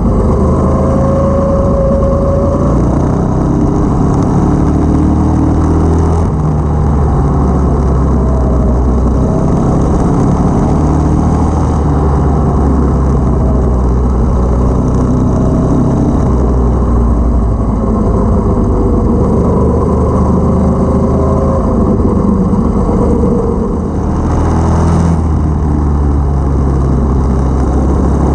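212cc single-cylinder go-kart engine with a stage 1 kit running under load, its pitch rising and falling as the kart speeds up and eases off, with a brief drop in level about 24 seconds in.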